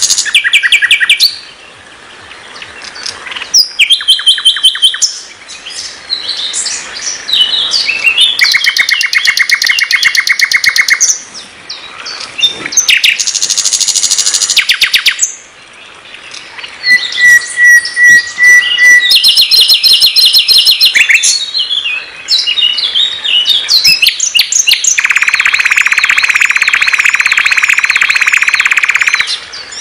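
Nightingale singing a varied song. Fast trills of repeated notes, clear whistled phrases and a long buzzy rattle come one after another, with short pauses between phrases.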